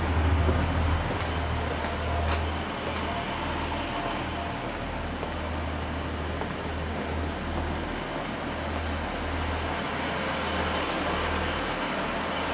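Low, steady rumble of a vehicle engine running, with a haze of traffic noise and a few faint clicks.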